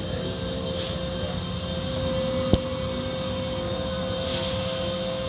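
Automatic car wash heard from inside the car: water spray and foam washing over the windshield on top of the steady running of the wash machinery, with a steady hum throughout. A single sharp click comes about halfway through.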